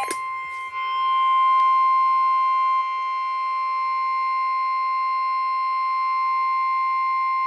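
NOAA Weather Radio 1050 Hz warning alarm tone: one steady, loud, high tone held without a break. It is the attention signal that precedes a warning broadcast, here a tornado warning.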